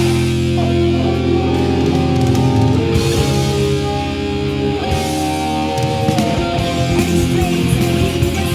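Heavy metal band playing an instrumental passage: electric guitars hold chords that change every second or two over drums.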